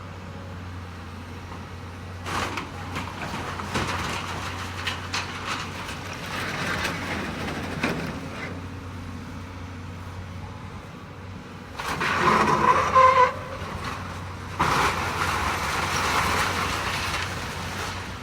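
Demolition excavator's diesel engine running steadily while it tears into a building, with bouts of crunching and clattering debris and a brief metallic squeal about twelve seconds in.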